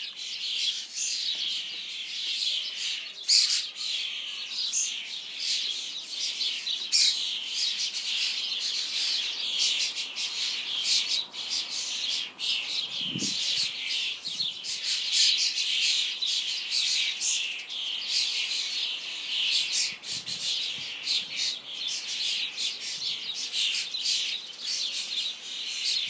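A flock of fledgling common starlings calling without pause: many overlapping high chirps and squawks making a dense, steady chatter.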